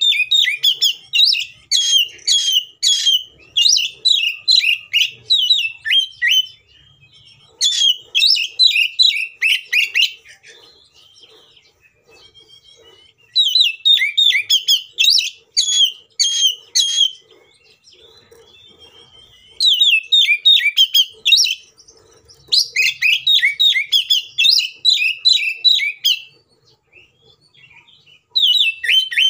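Oriental magpie-robin singing loudly in phrases of rapid, high, varied notes, each run lasting a few seconds and broken by short pauses. It is the bird's fired-up, full-volume fighting song, the kind kept to provoke other magpie-robins into singing.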